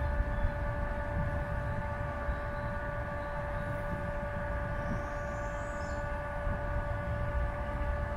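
A steady mechanical hum made of several fixed tones, with an uneven low rumble beneath it.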